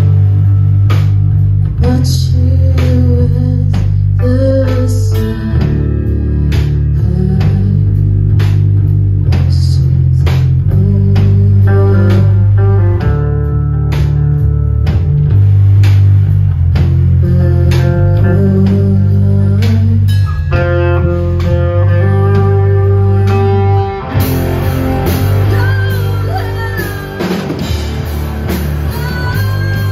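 Three-piece rock band playing live: electric guitar, bass guitar and drum kit, with a strong bass line and steady drum hits. The playing turns brighter and busier about 24 seconds in.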